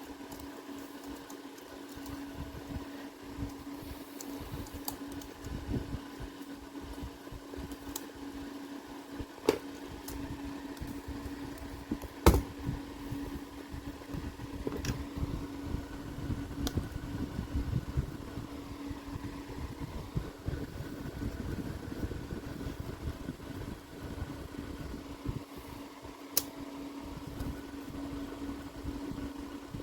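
A steady mechanical hum, as of a fan, with a few sharp plastic clicks scattered through it, the loudest about twelve seconds in: keycaps and butterfly clips of a low-profile scissor-switch keyboard being pried off and snapped back in place.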